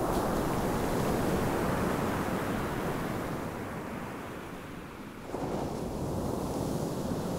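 Sea surf: waves breaking and washing up on a rocky shore. A little after five seconds in, the surf gives way abruptly to a duller, steady rumbling noise.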